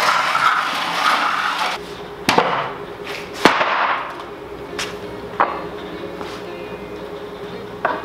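Wooden pallet scraping across a concrete floor, then knocking down flat with two sharp wooden thuds, the second louder. A few lighter wooden knocks follow.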